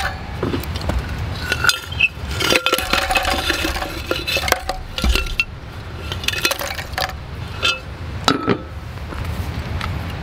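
Spent lumps of charcoal clinking and clattering as they are tipped out of a metal charcoal-extinguisher pot into a charcoal grill, with metal knocks from the pot. It is a string of separate clinks with a short ring to them.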